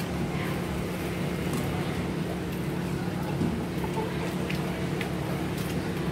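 A boat's engine running steadily with an even, low drone, with a few light clicks and knocks over it.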